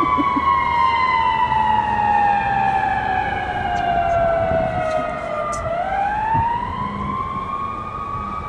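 Emergency vehicle siren wailing: a single tone slides slowly down for about six seconds, then sweeps quickly back up.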